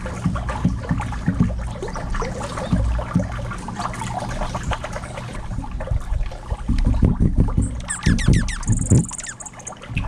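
Birds foraging on the ground close to the microphone: a steady run of irregular taps, scratches and rustles as they peck and hop through scattered seed and mulch. About eight seconds in, a bird gives a short call of quick high sweeps.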